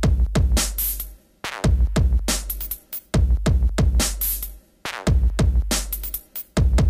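Background electronic music: a drum-machine beat with deep held bass notes and sharp drum and cymbal hits, repeating about every second and a half.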